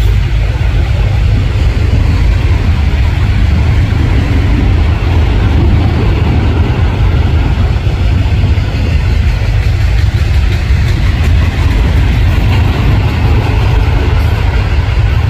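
Freight train with diesel locomotives running by: a loud, steady low rumble of engines and rolling cars on the rails.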